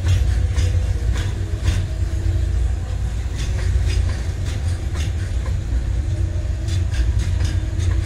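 Container flat wagons of a freight train rolling slowly past: a steady low rumble with irregular clicks and clacks of wheels over the rail joints, coming thicker near the end.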